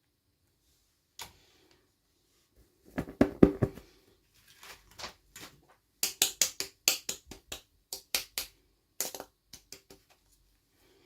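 Small hard plastic toy pieces and packaging being handled up close: a string of sharp clicks and taps. There is one click about a second in, a heavier cluster of taps around the middle, and then quick, irregular clicks.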